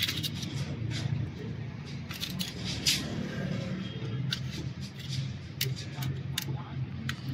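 Light, sharp metallic clicks, about a dozen at irregular intervals, from the small steel rollers and parts of a Toyota 2L diesel injection pump's roller ring being handled and fitted. A low steady murmur runs underneath.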